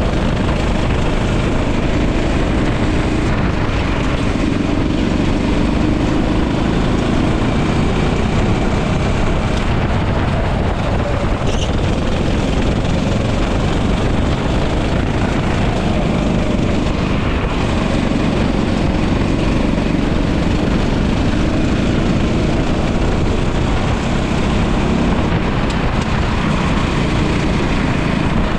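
Racing kart engine running hard on track, its pitch climbing and dropping again every few seconds as the kart accelerates and slows for corners, with wind rumble on the microphone.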